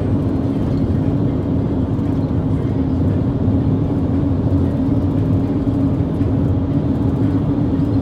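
Steady road and engine noise inside a moving vehicle at cruising speed, a loud low drone with a constant hum.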